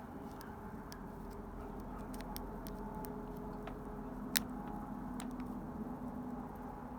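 Faint, irregular ticks and clicks of a hook pick working the pin stack of a Master Lock 3SSKADLF padlock held under tension, with one sharper click about four seconds in. A steady low hum sits underneath.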